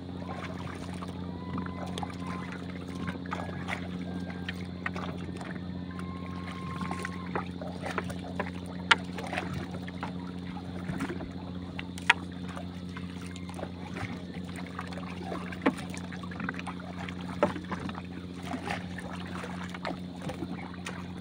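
Gill net being paid out over the side of a paddled outrigger canoe: scattered light knocks and clicks of the net, its floats and the paddle against the boat, over a steady low hum.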